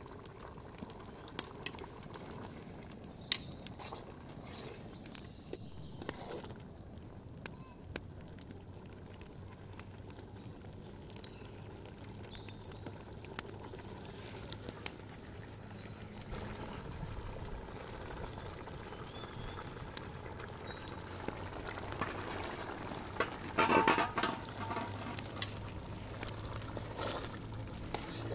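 Large pot of tomato-based food boiling hard over a wood fire, a steady bubbling with scattered sharp clicks and pops. A louder clattering burst comes near the end.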